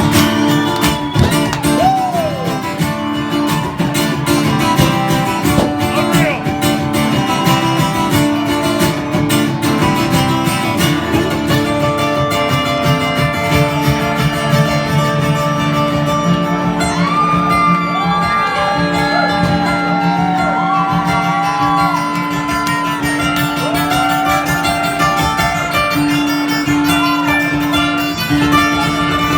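Live country band playing an instrumental passage, with a lead guitar picking notes and bending strings up and down over steady bass and rhythm.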